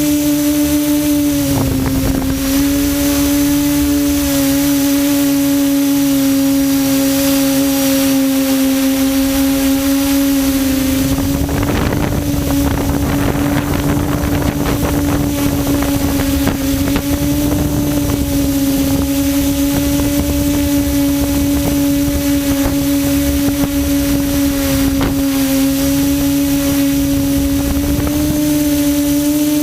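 Multirotor drone's electric motors and propellers humming steadily in flight, one steady pitch with overtones that dips briefly a couple of times. Wind rushes over the microphone, most strongly about twelve seconds in.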